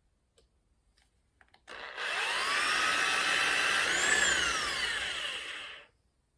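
Small electric power tool motor running for about four seconds. It starts about two seconds in with a rising whine, climbs higher a little past the middle, then falls away and cuts out.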